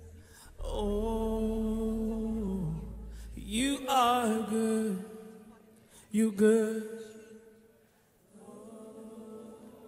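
A singing voice holding long notes in four slow phrases, one of them with a wavering vibrato, over a low sustained tone that drops out a few seconds in. The last phrase is softer.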